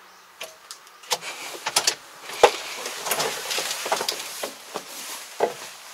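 Clicks and knocks of a Kubota tractor's cab door being unlatched and pushed open on its gas strut as someone climbs out, with handling clatter and rustling between the knocks.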